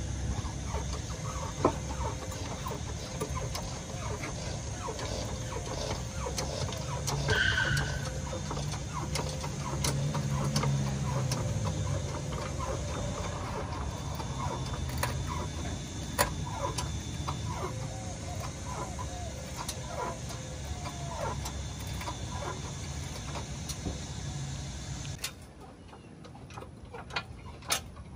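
Hydraulic floor jack being pumped by its handle, lifting a car: a long run of clicks and squeaks over a steady low rumble. The rumble drops away about three seconds before the end.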